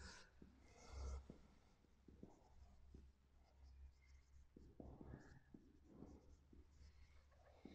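Faint sound of a whiteboard marker writing on a whiteboard, in short irregular strokes.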